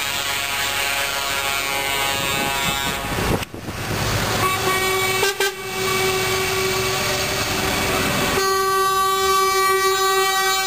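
Trucks in a slow convoy driving past, then a truck air horn sounding one long held blast from about four seconds in, over the running engines.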